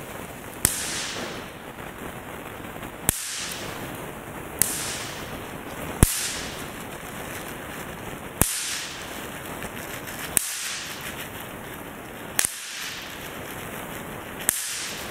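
Finger snaps, eight in all, one every one and a half to two and a half seconds, each a sharp crack with a short echoing tail over a steady hiss.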